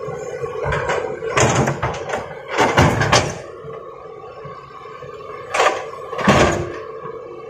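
Several sudden knocks and scrapes, loudest in a cluster about three seconds in and again twice near six seconds, over a steady hum.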